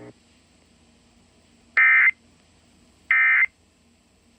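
Emergency Alert System SAME end-of-message data bursts: two short, identical, buzzy digital chirps about 1.3 seconds apart, the first nearly two seconds in. These are the end-of-message code that signals the alert is over.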